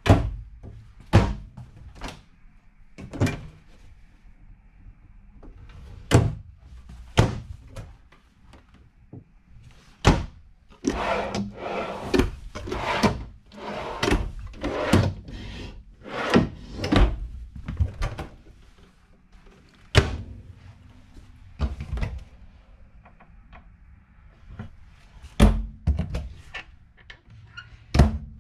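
Cabinet doors and drawers in an RV being opened and shut one after another: a string of sharp knocks and thuds, with a busier stretch of clattering in the middle.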